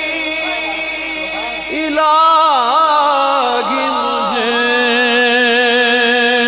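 Devotional naat singing: a steady held vocal drone, joined about two seconds in by a louder male voice singing a long wordless, ornamented line with heavy vibrato.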